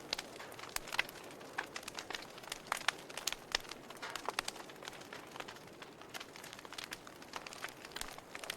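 Wood fire crackling in a fireplace: irregular sharp pops and snaps over a soft steady hiss, with a few louder pops.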